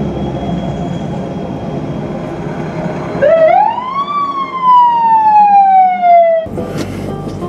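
A fire truck's siren giving one wail that climbs for about a second and then falls slowly, cut off suddenly near the end. Before it, a steady low rumble with a faint high steady tone.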